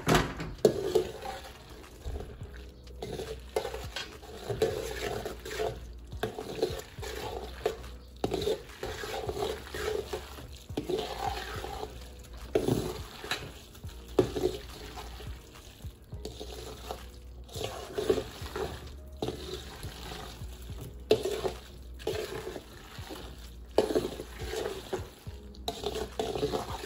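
Metal spoon stirring cooked elbow macaroni and cheese sauce in a large stainless steel bowl: wet stirring strokes, with the spoon knocking and scraping against the bowl, about one stroke a second in an uneven rhythm.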